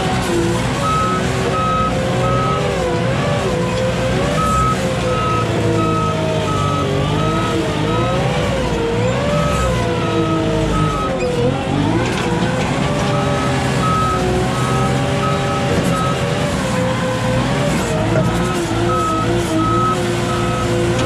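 Caterpillar Navigator 5500 piggyback forklift's engine working under load through mud, its pitch rising and falling with the throttle and dipping in the middle. Its high reversing alarm beeps in runs that stop and start again several times.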